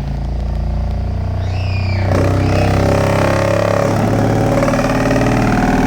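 An 8-inch subwoofer in a home-built L-ported MDF box plays a loud low-frequency test tone, getting louder about two seconds in, with a buzzing, rattling distortion on top. The builder puts the rasp down to the driver not being screwed in and to the volume being too high.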